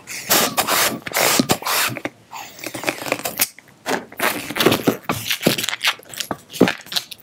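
Hand balloon pump filling a 260 latex twisting balloon with a few quick, hissing strokes of air, then squeaks and rubbing of the latex as the inflated balloon is handled at its nozzle.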